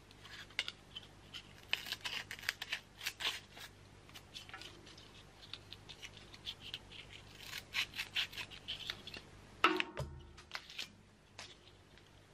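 Tin snips cutting adhesive-backed sandpaper: a run of short, scratchy snips and rustles as the blades work through the paper, with a sharper knock near the end.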